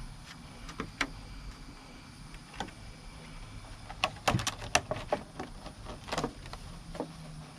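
Scattered light clicks and knocks of small objects being handled, with a quick run of them about four to five seconds in and another near six seconds, over a low steady background hum.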